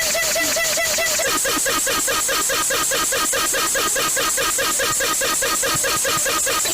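Electronic EAS-style emergency alarm tone: a rapid repeating warble of about five chirps a second that switches to a different warble pattern about a second in.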